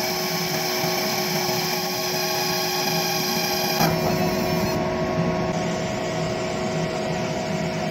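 ComMarker B4 fiber laser engraver running while it marks a halftone photo: a steady mechanical buzz and hiss with a few steady hum tones. The sound shifts about four seconds in, and the highest hiss falls away soon after.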